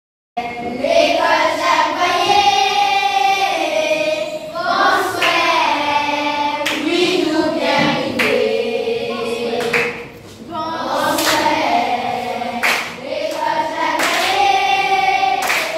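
A group of children singing together, with a few sharp handclaps scattered through the song. The singing starts abruptly just after the start and drops away briefly about ten seconds in.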